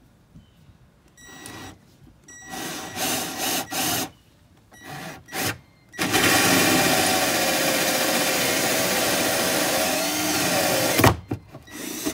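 Power drill boring holes through the fiberglass hull of a bass boat. First come a few short trigger bursts, then a steady run of about five seconds under load that sags in pitch and cuts off suddenly.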